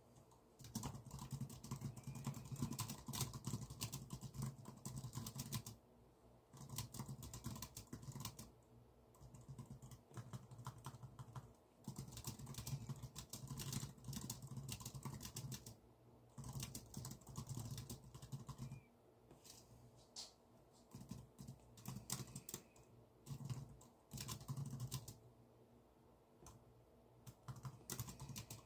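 Typing on a computer keyboard: runs of rapid key clicks broken by short pauses every few seconds.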